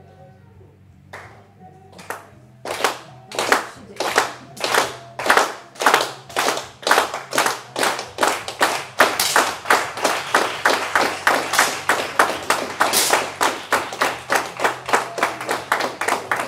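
Audience clapping in unison, a steady beat that sets in after a few scattered claps and speeds up from under two to about two and a half claps a second.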